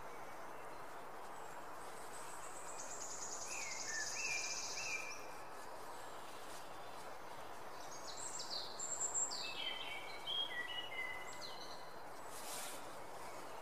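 Outdoor ambience: a steady soft background hiss with small songbirds chirping and trilling in two spells, a few seconds in and again past the middle.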